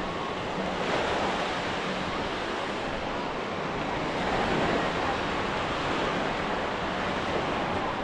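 Ocean waves breaking on a beach: a steady wash of surf that swells slightly about a second in and again around halfway.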